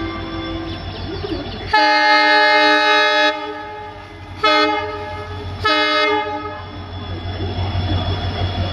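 EMD diesel locomotive sounding its air horn: one long blast, then two short blasts, over the low steady running of its engine.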